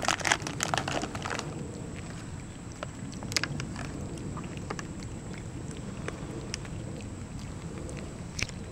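A plastic trail-mix bag crinkling and rustling for about the first second and a half. After that only a low, steady outdoor rumble remains, with a few faint scattered clicks.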